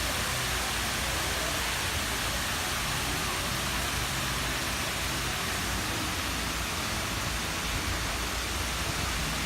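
Steady rushing of falling water, an even hiss that holds without a break.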